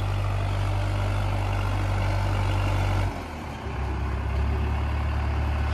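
Farmtrac tractor's diesel engine running steadily under load as it hauls a loaded trolley up a steep dirt track. About three seconds in the sound dips briefly, then the engine carries on at a slightly different note.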